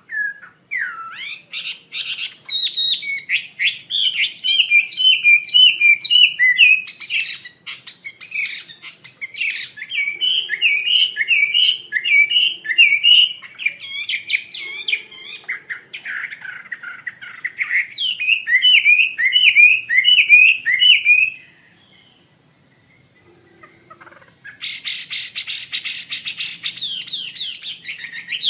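Chinese hwamei singing a long, energetic song of rapid, repeated sweeping whistled notes. Near the end it breaks off for about three seconds, then comes back with a dense burst of notes.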